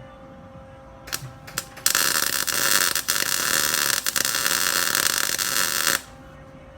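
Electric welder arc on steel, tack-welding a steering-wheel mounting plate: two short crackling strikes about a second in, then a steady crackling arc for about four seconds that cuts off abruptly. A faint steady hum runs underneath.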